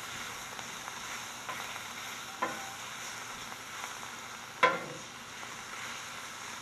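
Chicken pieces sizzling steadily in olive oil on a hot Camp Chef flat-top griddle. Two sharp clicks cut through the frying, the louder one about two-thirds of the way through.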